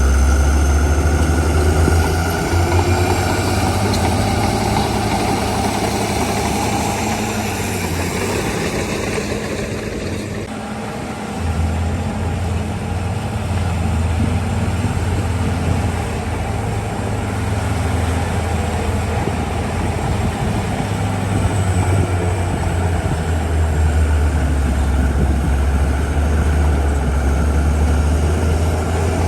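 Heavy diesel engine running steadily with a deep hum, easing off briefly about ten seconds in and then picking up again.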